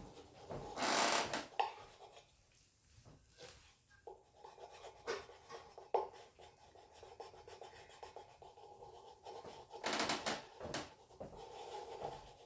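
Sandpaper rubbed by hand over a hubcap for a light sanding before painting: two short louder scrapes, about a second in and near the end, with faint scratching and small clicks between.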